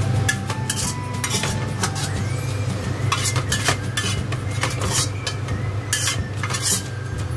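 Metal ladle scraping and knocking around the inside of a wok in a series of short strokes, over a steady low hum.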